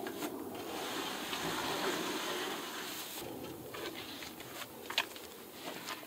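Large wooden horizontal beehive box being wrestled off a pickup tailgate: wood scraping and rubbing, with scattered knocks and a sharper bump about five seconds in.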